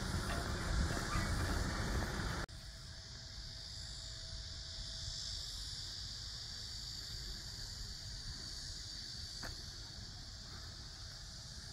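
Wind buffeting the microphone, then an abrupt cut about two and a half seconds in to a quieter, steady high-pitched drone of summer insects over a low rumble, with a single click near the end.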